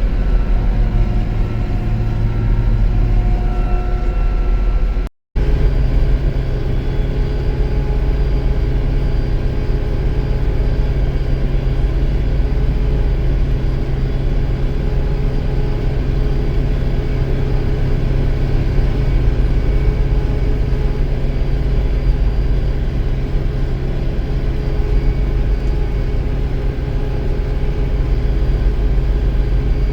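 Farm tractor engine running steadily while driving along the road carrying a hay bale, a loud low drone. The sound cuts out for a moment about five seconds in, then resumes unchanged.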